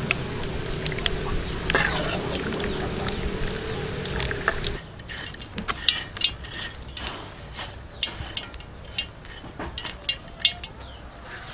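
Metal spatula stirring and tossing crispy fried shallots in a woven bamboo basket: a dry crackling rustle with scattered sharp taps and clicks. For the first five seconds or so a steady low hum and hiss lies underneath, then cuts off abruptly.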